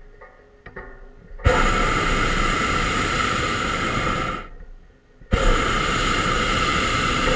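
Hot air balloon's propane burner firing in two long blasts of loud, steady rushing hiss. Each blast starts abruptly as the valve opens. The first lasts about three seconds, then a second starts after a short gap.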